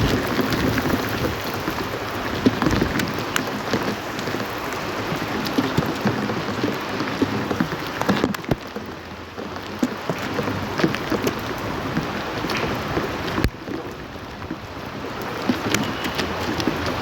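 Steady rain, with many individual drops pattering sharply on a hard surface. It eases a little twice, about halfway through and again about two-thirds of the way in, then builds again near the end.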